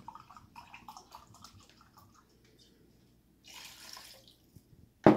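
Rum glugging out of a glass bottle into a glass measuring cup, then a short splashing pour as the cup is tipped into a bowl of fruit punch. A single sharp knock near the end.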